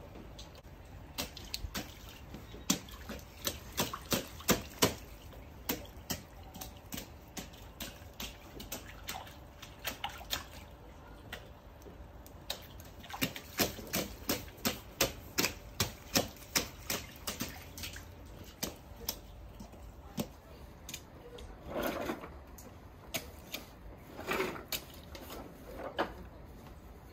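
A child's rubber wellies splashing through a shallow puddle on wet paving stones. The footsteps come as sharp splats, in runs of about two a second.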